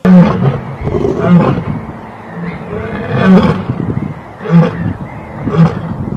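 Lion roaring in a bout: a loud roar starts it, a few more long roars follow, then shorter grunts come about once a second toward the end.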